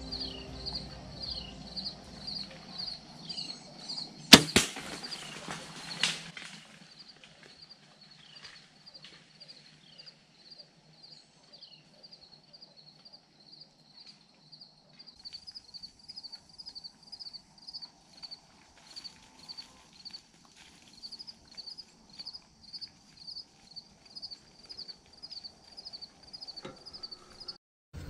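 Compound bow shot: a sharp snap of the string about four seconds in, a second knock just after, then a rush of noise lasting about two seconds. Night insects keep chirping steadily, about two chirps a second.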